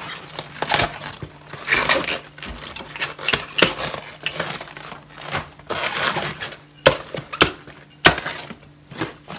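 Outer leaves of a raw green cabbage being torn off the head by hand: irregular crisp snaps and crackles with leafy rustling between them.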